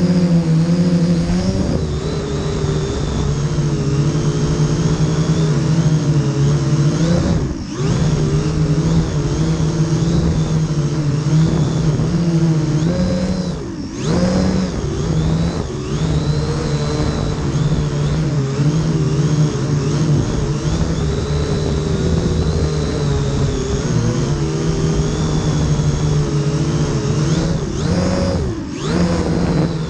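Huanqi H899b quadcopter's motors and propellers buzzing, heard up close from a GoPro mounted on the drone. The pitch wavers up and down as the throttle changes, and the sound briefly drops away three times.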